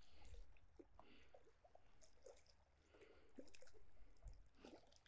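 Faint, scattered small splashes and ticks from a hooked bass thrashing at the pond surface as it is reeled in.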